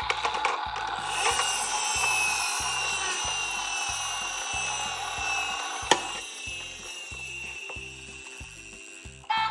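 Toy minicars rolling down a slope: a rattling whir of small wheels with slowly falling tones that fades away, and one sharp click about six seconds in. A children's music track with a steady beat runs underneath.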